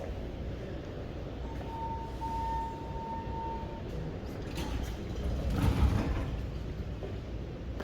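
Elevator sounds: a steady electronic tone held for a little over two seconds, then the elevator doors sliding, the loudest moment, about six seconds in.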